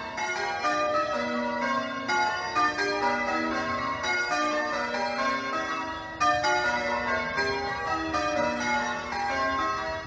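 Change ringing on a ring of eight church bells, the back six cast by Warner in 1913 and two newer trebles added, the bells striking one after another in quick, even succession.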